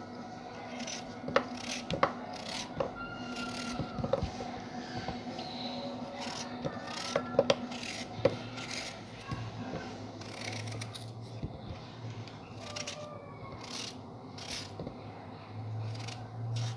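Small kitchen knife cutting through a raw potato held in the hand: a run of crisp clicks and rasping scrapes as strips are sliced off and drop onto a wooden cutting board. A faint low hum comes in about halfway through.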